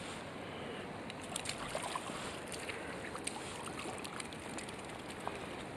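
Flowing river water, a steady rushing hiss, with scattered small splashes and ticks while a hooked rainbow trout is brought in at the bank.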